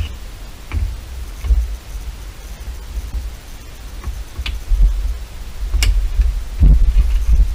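Scattered sharp clicks and rustling as plastic interior trim on a BMW E39 dashboard is handled, over a low rumble.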